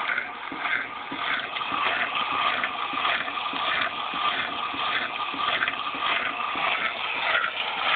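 Class 6 kg washing machine running in its drain and rinse-spin stage, with a rhythmic whooshing that pulses about twice a second.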